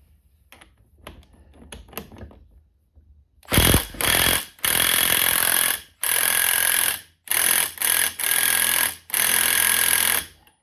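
Impact wrench hammering on the KTM 450 EXC counterbalance shaft nut in about seven loud bursts, each up to a second or so long. The nut does not break loose, and heat is needed to free it. Light tool-handling clicks come before the first burst.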